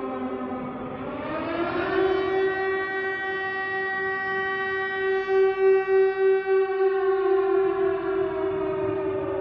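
Air-raid siren wailing. Its pitch rises about a second in, holds steady, then slowly falls over the last couple of seconds, over a second steady tone; the sound pulses in the middle where the two tones meet.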